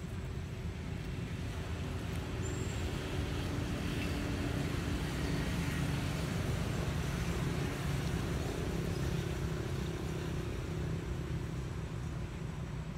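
Road traffic: a motor vehicle's engine hum builds over a few seconds and then fades as it passes, over a steady background of traffic noise.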